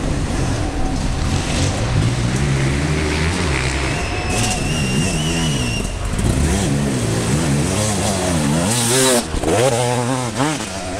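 Enduro dirt bike engine revving hard through deep mud, its pitch rising and falling again and again with the throttle, louder and sweeping more widely as the bike passes close by near the end.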